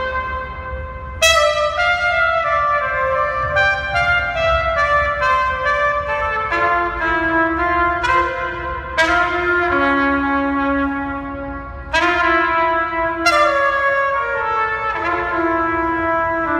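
Music led by a trumpet or other brass instrument, a melody of sustained notes, with a few sharp new phrases starting about a second in, midway and near the end.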